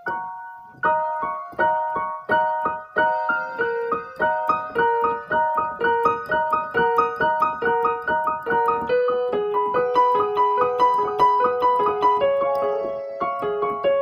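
Background piano music: a steady pulse of repeated notes and chords, a few strikes each second.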